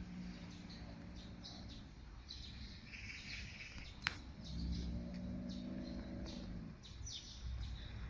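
Faint, scattered chirping of small birds over a low steady hum that swells twice, with one sharp click about four seconds in.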